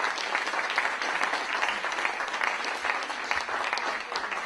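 Audience applauding: dense, steady clapping that begins to thin out near the end.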